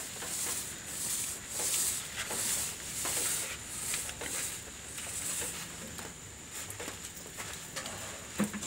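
Paint roller worked up and down on a rough cement-rendered wall, a rasping swish repeating about once a second.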